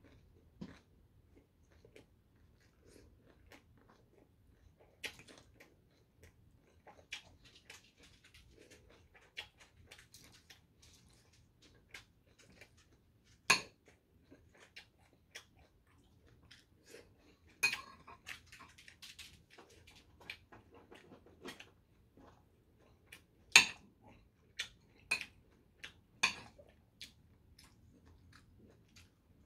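Close-up eating sounds: quiet chewing, with a metal spoon tapping, scraping and clinking on plates and bowls as grilled fish flesh is picked off. A few sharp clinks stand out from the quieter tapping.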